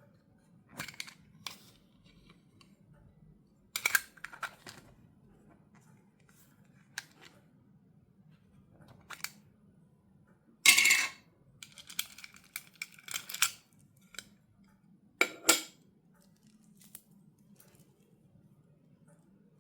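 Toy packaging being handled and opened: short, irregular rustles, clicks and snips of plastic and cardboard, about a second or more apart, with a loudest cluster around eleven to thirteen seconds in.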